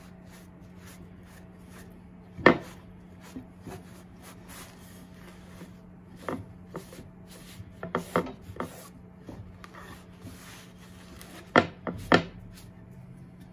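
Cloth towel rubbing and wiping a freshly sanded wooden cutting board. A few sharp wooden knocks come as the board is handled, the loudest about two and a half seconds in and twice near the end. A steady low hum runs underneath.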